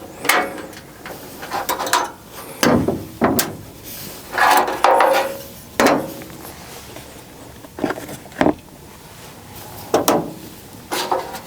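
Hands and tools working inside a furnace's blower compartment: about ten separate clanks, knocks and scrapes of metal parts being handled, with quieter rustling between them.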